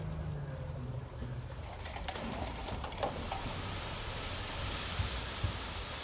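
Diesel engine of heavy earthmoving machinery running at a distance: a steady low rumble, with a brief falling drone in the first second and a few short clanks later on.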